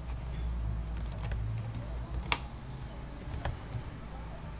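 Typing on a computer keyboard: irregular key clicks, one louder about halfway through, over a low steady hum.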